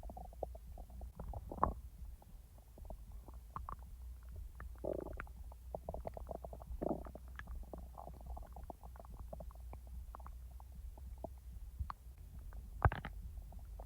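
Human stomach and intestines gurgling during digestion: a run of small pops and clicks, with a few longer bubbling gurgles, over a steady low hum. A sharp pop near the end is the loudest sound.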